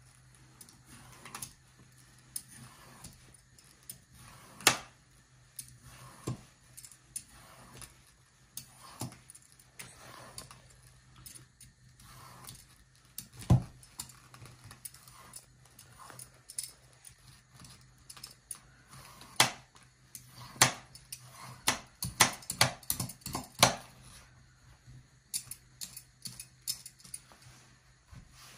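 Vegetable peeler scraping strips of skin off courgettes in short, irregular strokes, with a quick run of sharper clicks about two-thirds of the way through.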